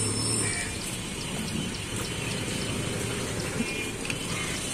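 Steady street background noise: an even hiss with no distinct events.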